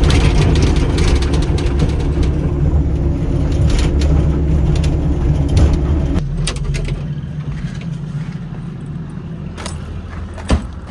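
Hitachi 200 LC excavator's diesel engine working hard, with sharp knocks and clanks, then easing to a lower, quieter run about six seconds in.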